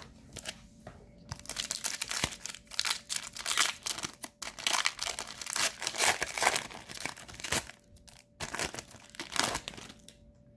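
Wrapper of a hockey card pack crinkling and tearing in a long run of rustles as it is opened and handled, with a short lull near the end.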